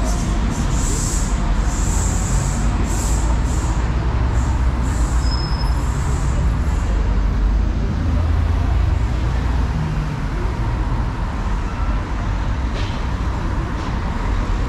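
City road traffic with buses and cars passing: a steady low engine and tyre rumble, with a run of short high hissing sounds about once a second during the first six seconds.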